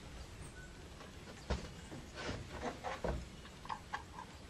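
Faint handling knocks and clicks of a plastic third brake light assembly being picked up and held against its mounting opening: one sharp knock, then a cluster of light taps and small ticks.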